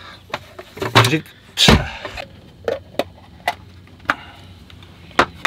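Sharp clicks and knocks, about eight in all, from a folding camp table's metal legs being unfolded and the table set down, then plastic snap-lock food container lids being unclipped and lifted. The loudest knocks come about one to two seconds in.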